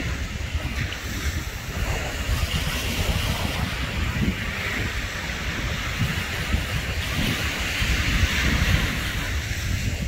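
Surf washing and breaking over rocks along a rocky shore, a steady rushing that swells and eases, with wind buffeting the microphone.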